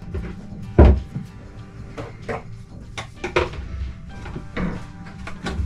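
A handful of knocks and clunks as a hand pump with a long tube is picked up and pushed down into a boat's bilge, the tube bumping against the cabin fittings; the loudest knock comes about a second in.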